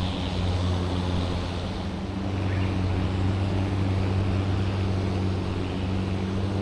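An engine running with a steady low drone, slightly louder from about two seconds in.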